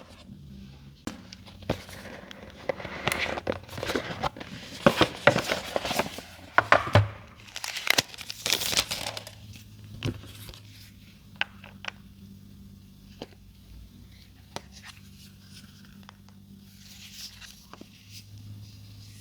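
Phone packaging being handled: crinkling and tearing of wrapping, with clicks and taps. It is busy for about the first half, then thins to occasional taps.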